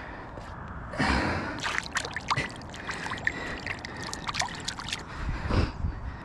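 River water splashing and sloshing irregularly as a freshly gutted brown trout is rinsed by hand in the shallows to wash off its slime coat.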